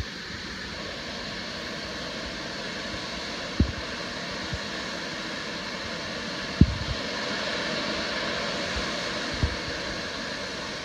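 Steam hissing steadily from the LMS Crab 2-6-0 steam locomotive 13065, filling out about a second in and holding, with a few short low thumps.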